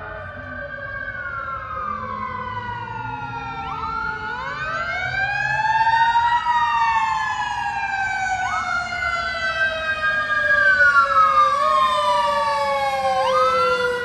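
Fire truck sirens wailing, with two or more rising and falling sweeps overlapping and a slowly falling tone beneath them. They grow louder as the truck approaches.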